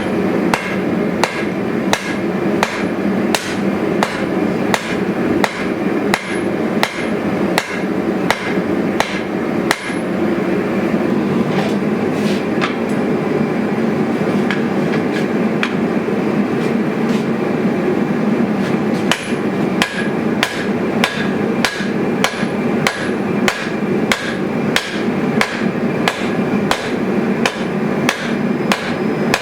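Hammer blows on a hot steel blade at the anvil, about two a second, with a ringing anvil tone. The blows break off for several seconds midway, with only a few scattered strikes, then resume at the same pace over a steady rushing noise.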